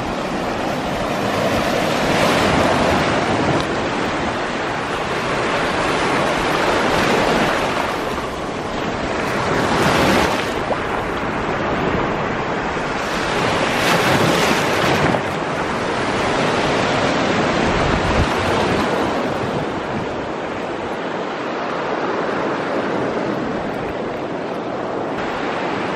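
Small surf washing in and drawing back over a shell-covered shoreline, a continuous wash that swells in several surges.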